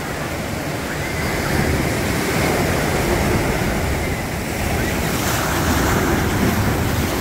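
Ocean surf breaking and washing up a sandy shore, getting louder about a second and a half in, with wind buffeting the microphone.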